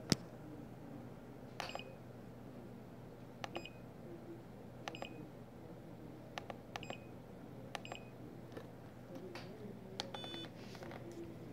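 Small tactile push buttons on a homemade timer module clicking as they are pressed, about a dozen presses spaced a second or so apart, some in quick pairs. The first press is the loudest, and a short electronic beep sounds about ten seconds in.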